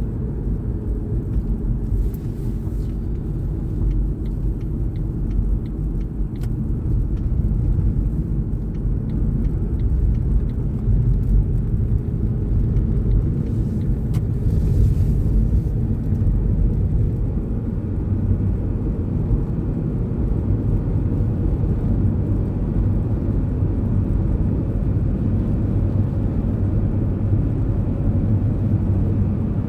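Steady low rumble of a car being driven, with engine and road noise, and a few faint clicks in the first several seconds.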